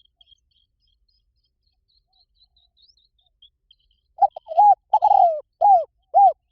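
Spotted dove cooing: a phrase of about five arched coo notes starting a little past halfway, over faint high chirps from a small bird.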